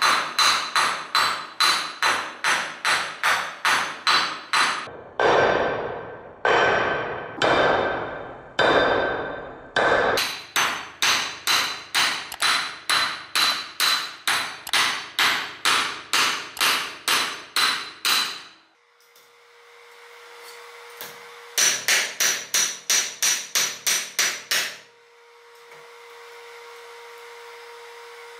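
Hand hammer striking an iron bar on an anvil: runs of quick metallic blows about three a second, broken by four slower blows that ring longer. Partway through the blows stop for a few seconds over a faint steady hum, then a last quick run follows.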